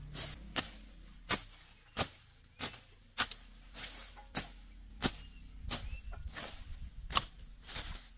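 A hoe chopping into earth with repeated sharp strikes, about one every two-thirds of a second, as steps are dug into the pond bank.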